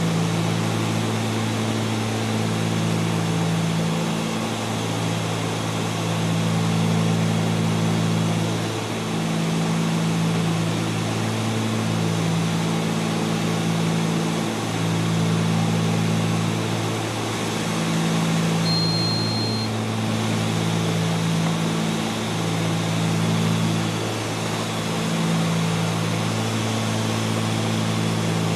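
Cessna 310's twin piston engines and propellers running steadily in the cabin on approach. The engine note throbs slowly, swelling every two to three seconds. One short, high beep sounds about two-thirds of the way through.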